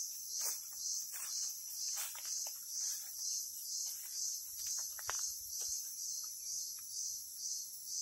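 Crickets chirping in the forest: a high, shrill trill that pulses evenly a couple of times a second, with a few faint clicks underneath.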